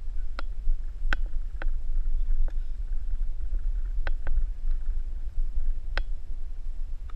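Low, gusting rumble of wind on a handheld action camera's microphone, with about seven sharp clicks and knocks scattered through it.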